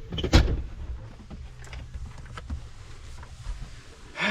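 A loud knock about half a second in, then a few lighter clicks and knocks of handling, over a low rumble.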